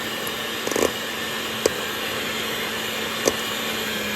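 Electric mixer running steadily on its lowest speed while shredding cooked chicken thighs, its motor giving a constant hum, with a few sharp clicks of the beaters knocking against the bowl.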